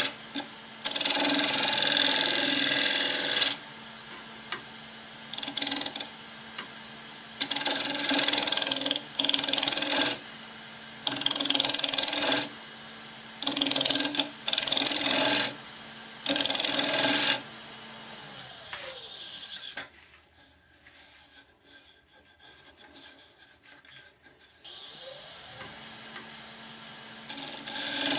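Wood lathe turning a madrone bowl while a scraper shear-scrapes the outside: repeated hissing, rasping cuts of a second or two each, with the lathe motor's steady hum between them. About two-thirds through, the lathe winds down to a stop and the shop goes nearly quiet for a few seconds. It then spins back up, and the scraping cuts start again near the end.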